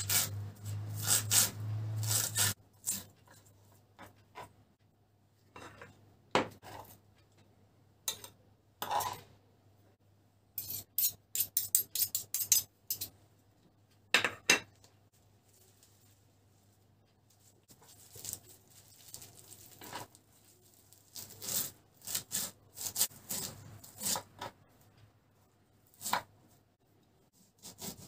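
Kitchen knife chopping spring onions and then parsley on a wooden cutting board, in quick runs of taps, with a few clinks of a china plate being handled between them. Near the end the knife cuts into a lemon.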